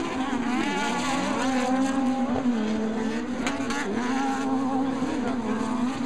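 Off-road Pro Buggy race engines running, with several engine notes overlapping and their pitch rising and falling as the buggies accelerate and back off.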